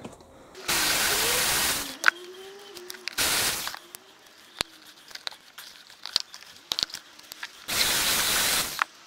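Cordless drill-driver running in three short bursts, the longest about a second, as it works the screws of a winch control box. Small clicks and taps of handling come between the bursts.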